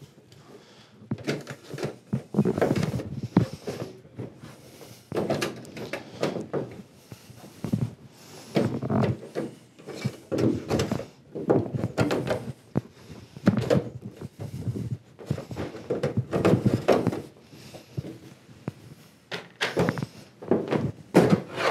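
Plastic retaining clips of an LG 65UN6950ZUA TV's back cover popping loose as a plastic spudger is worked along the edge, with scraping of the pry tool and knocks of the plastic panel. Irregular snaps and thunks come every second or so.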